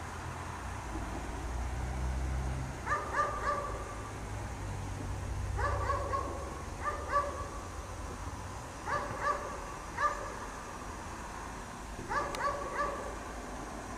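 A dog barking in short bursts of two or three barks, repeated about every one to three seconds.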